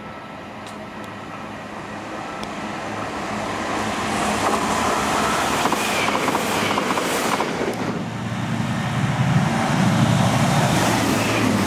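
Diesel passenger train approaching on the line: a steady rush of engine and wheel noise that grows louder over the first few seconds and is loudest near the end.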